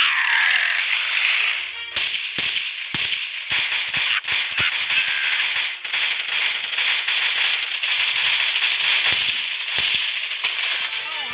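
Dubbed gunfire sound effects, a run of sharp, irregular bangs starting about two seconds in and coming again near the end, over background music.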